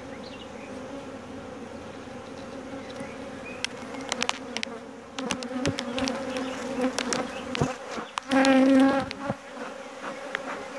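Honeybees humming steadily around an open hive, with scattered light clicks and knocks in the middle. Near the end a single bee buzzes loudly close by for about a second.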